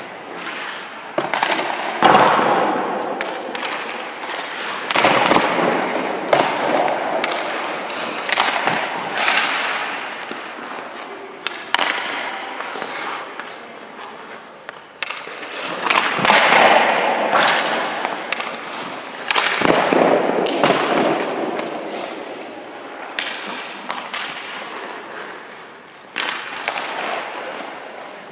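Ice hockey goalie's skate blades scraping the ice in repeated pushes and hard stops, each scrape lasting a second or two, with a few sharp thuds of gear hitting the ice.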